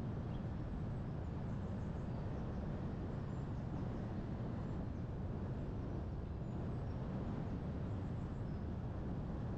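Steady wind and road noise of a car driving along at an even speed, a low rumble with no changes in level.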